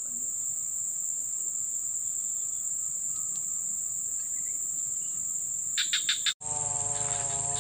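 Swamp insects chirring in a steady high-pitched drone. Near the six-second mark there is a quick run of about four clicks, then the sound cuts off abruptly and a wavering pitched call with several overtones begins.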